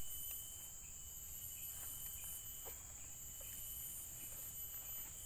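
Steady high-pitched insect chorus in the background, with a few faint ticks.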